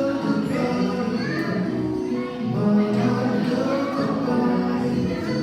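Music playing, with steady pitched notes over a repeating bass line.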